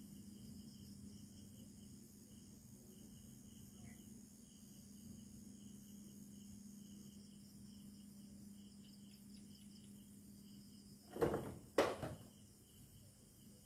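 Crickets chirping steadily over a constant low hum. About eleven seconds in, two short, loud noises come about half a second apart.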